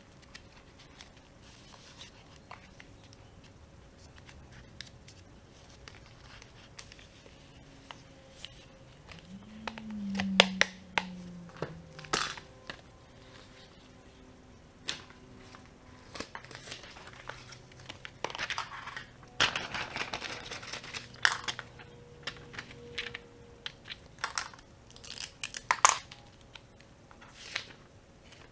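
Sheets and rolled tubes of paper being handled, with rustling and crinkling, scattered taps and clicks, and a longer tearing noise lasting a second or two about two-thirds of the way in.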